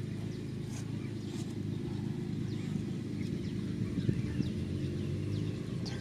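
A vehicle engine running steadily, a low drone, with birds chirping faintly over it.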